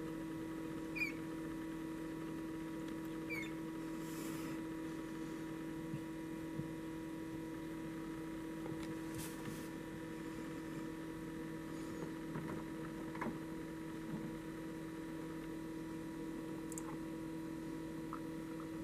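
Steady electrical hum of a running egg incubator, with a few faint short high chirps about a second and three and a half seconds in.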